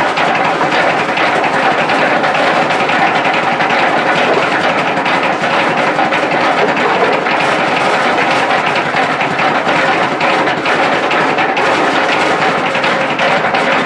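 Coffee cherry pulping machine running steadily, driven by its small stationary petrol engine: a constant, unbroken engine drone with the machine's mechanical noise.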